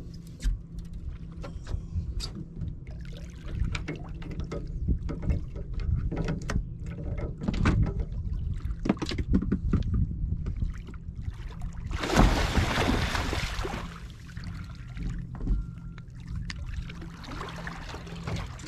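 A large catfish thrashing at the side of a boat as it is fought in. A run of sharp knocks and clicks is followed by a loud, rushing splash about twelve seconds in that lasts a couple of seconds, and another splash near the end as the fish is grabbed and hauled aboard.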